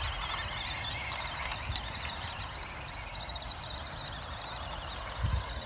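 Stock electric motor and gearbox of a WPL C24-1 1/16 RC truck whining as it drives through long grass: a high, wavering tone over a low rumble.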